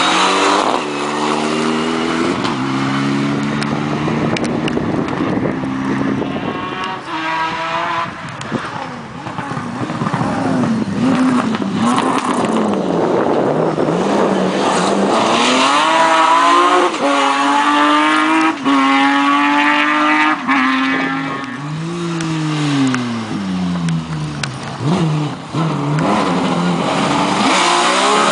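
Rally cars passing one after another on a closed stage, engines revving up and down through gear changes. Around the two-thirds mark one engine note falls away as a car slows and leaves, and another rises near the end.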